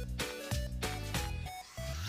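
Background instrumental music with held notes that change every fraction of a second.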